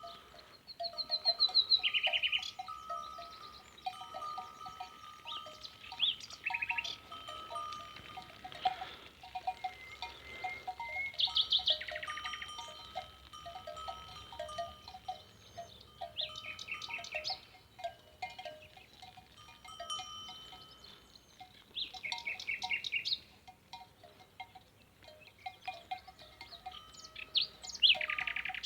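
Songbirds singing in spring: one bird repeats a short, fast trilled phrase about every five seconds, over steady calling from other birds.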